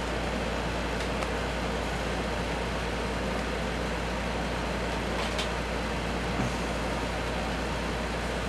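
Steady low hum and hiss of background machine noise, with a few faint clicks.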